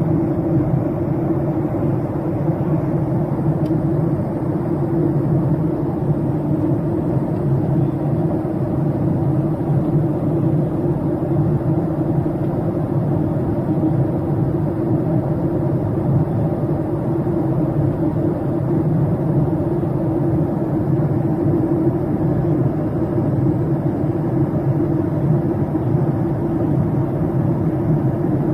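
Steady low drone of cabin noise inside a Boeing 737-800 airliner: the hum of its CFM56 engines and the rush of air around the fuselage, even throughout.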